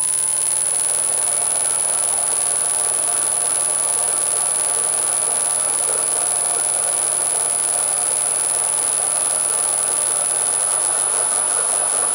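НГФ-110Ш4 benchtop milling machine running steadily at low spindle speed in its lowest gear, its motor driven by a frequency inverter at about 12 Hz, with a steady high-pitched whine over the running noise.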